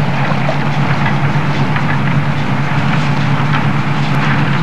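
A steady low hum with hiss over it, and faint splashes of water as a keepnet is lifted and drawn through the shallows.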